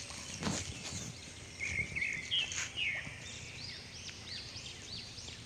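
Birds chirping: a few short calls, then a run of quick, arched chirps repeated a few times a second over faint outdoor background noise. A brief thump comes about half a second in.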